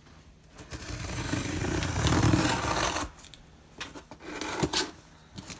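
Scissor blade drawn along the taped seam of a cardboard box, slitting the packing tape in one long rasping stroke of about two and a half seconds, followed by a few light clicks and knocks.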